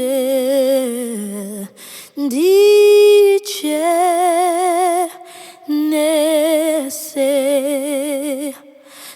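A woman singing unaccompanied, a slow Shona hymn in several long-held phrases with wide vibrato; the loudest, steadiest note comes about two to three seconds in.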